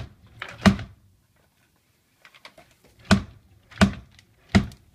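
Knocks and thuds of a toddler handling and banging things about on the wooden floor of a cupboard: one knock near the start, a few light clicks, then three sharper knocks less than a second apart near the end.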